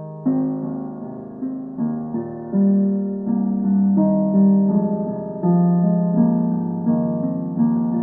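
Background piano music: a slow melody of struck notes, each one fading away before the next.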